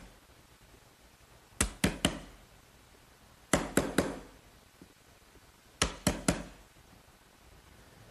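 A sharp chisel driven into a wooden board by mallet taps, squaring off the corner of a router-cut dado. The taps come in three groups of three quick knocks, about two seconds apart.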